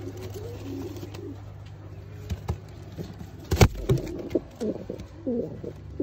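Fancy feather-footed pigeon cooing in low warbling phrases, with one sharp knock about three and a half seconds in as the bird strikes the phone filming it.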